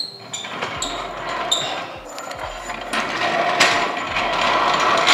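Hydraulic floor jack being released to lower a car: a few metallic clinks from the jack handle early on, then a steady rushing hiss as the release valve lets the car down onto its new coilovers.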